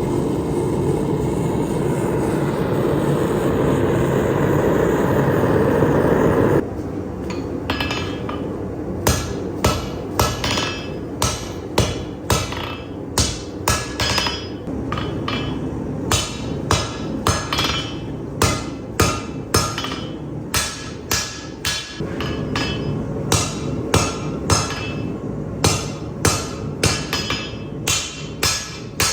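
Hand hammer blows on metal at an anvil, forging, at an uneven pace of about one to two strikes a second. Before them, a steady rushing noise for the first six seconds or so, which cuts off suddenly.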